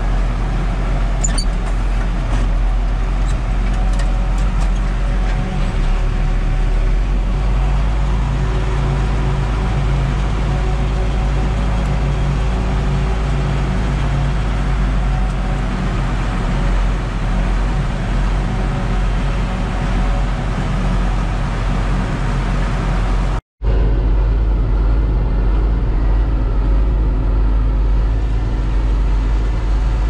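Steady diesel engine drone of a tractor and a forage harvester at work chopping corn silage, heard from inside a tractor cab. The sound cuts out for a moment about three quarters of the way through, then the same drone resumes.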